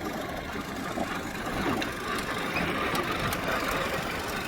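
Off-road jeep engine running steadily with a rapid, uneven chugging.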